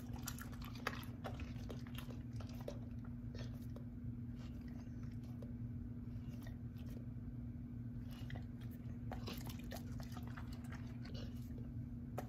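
Golden retriever eating small pieces of cooked chicken breast: irregular clicking and smacking of the jaws as she chews, in bunches.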